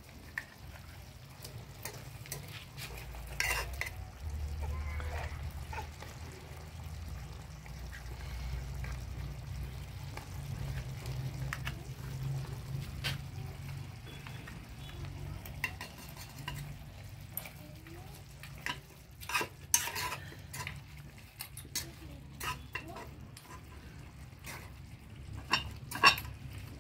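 A metal spoon clinking and scraping against a small cup and an aluminium cooking pot as a paste is scooped out and stirred into a stew: irregular sharp taps and clicks, with clusters about twenty seconds in and near the end, over a low steady rumble.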